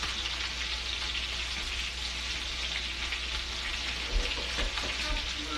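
Steady frying sizzle from duck breasts searing skin-side down in a cast-iron skillet, their fat rendering out, with a pan of vegetables cooking alongside. A few soft knocks come about four to five seconds in.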